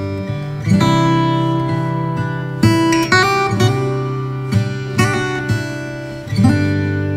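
Background music: an acoustic guitar strumming chords, with new chords struck every second or two.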